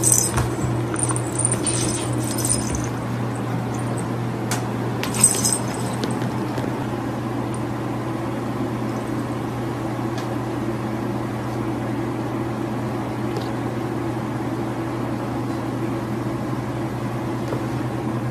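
Steady low hum, with short scratchy rustles and light knocks from two cats scuffling on a shaggy rug in the first three seconds and once more about five seconds in.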